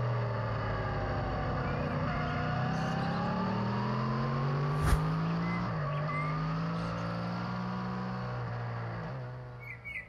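Yamaha MT-10's crossplane inline-four running through an SC-Project SC1 exhaust while riding. Its note sags, then climbs for a few seconds under throttle, dips briefly a little past halfway and holds steady before fading out near the end. A single sharp click sounds about halfway through.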